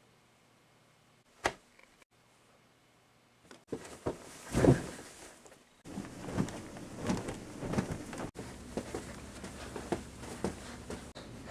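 Mostly quiet at first, with a single click. Then plush toys are handled: a soft thump, followed by a run of soft knocks and rustling about every half second, easing off into scattered faint taps.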